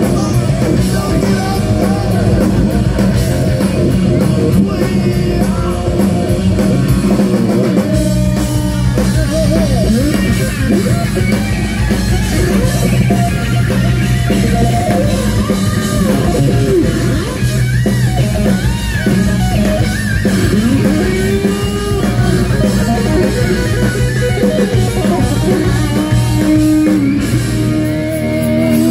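Live hard rock band playing loud: distorted electric guitar, bass guitar and drum kit, with a lead line that glides up and down in pitch through the middle stretch.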